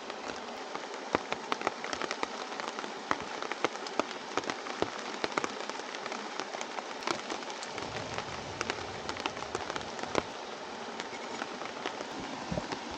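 Rain falling on a tarp shelter: many separate drop hits over a steady rush of water, with a deeper rushing sound joining about eight seconds in.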